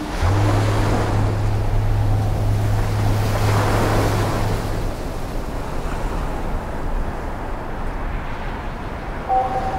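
Wind and breaking surf at the sea, a steady rushing noise, with a low steady hum underneath for about the first half that then stops.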